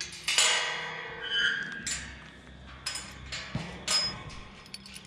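Sheep moving about in a wooden-floored shearing shed: hooves clattering on the boards and knocks against the pens, with a loud clatter just after the start and a short high squeak about a second and a half in.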